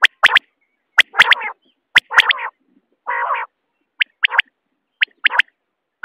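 Common quail calling: a short three-note phrase, one note then two quick ones, repeated about once a second, with a harsh buzzy note about three seconds in. Sharp clicks come several times in the first two seconds.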